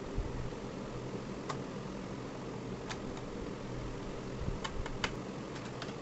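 Scattered light clicks and taps of hands handling a Dell laptop's plastic bottom case, several close together near the end, over a steady background hum.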